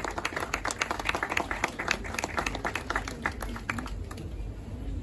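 Hands clapping in applause, with each clap distinct, thinning out and stopping about four seconds in.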